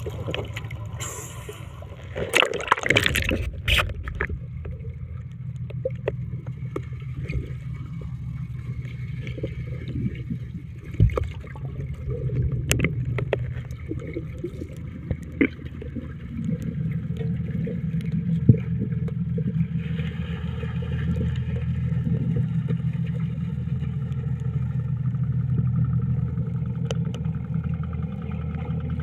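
Water sloshing and gurgling over the microphone about two to four seconds in. After it comes the steady low drone of a fishing boat's engine heard underwater, growing louder in the second half.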